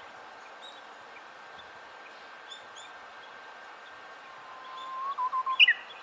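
Japanese bush warbler (uguisu) singing its song once. A long, slightly rising whistle starts past the middle and ends near the end in a quick, louder 'ho-ke-kyo' flourish. Faint chirps of other small birds are heard before it.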